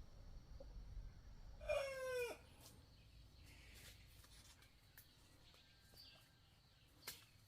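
A chicken calls once about two seconds in: a single short, pitched cry of about half a second that sags slightly in pitch at the end. A few faint clicks follow.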